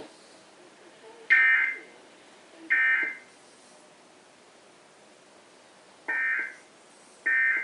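Emergency Alert System digital code bursts: four short, loud, buzzing data bursts, in two pairs about a second and a half apart with a few seconds between the pairs.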